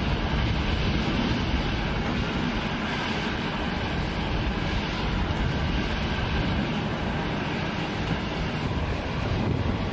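Steady low rumble of an Airbus A330's jet engines at taxi power, heard from a distance as the airliner rolls along the taxiway.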